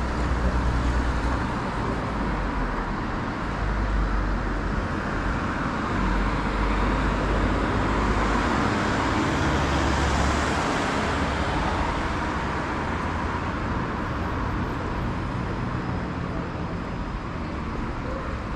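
Road traffic noise on a city street: a steady hiss of passing cars, swelling as a car goes by around ten seconds in and easing off afterwards.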